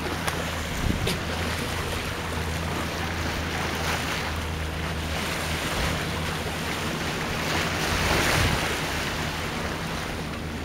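Wind buffeting the microphone and open-sea water rushing and splashing past a moving sailboat, with a steady low hum underneath. The wind and water swell briefly a little after the middle.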